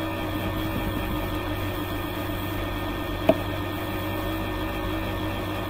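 Steady electrical hum with a background hiss, broken once by a short sharp click a little over three seconds in.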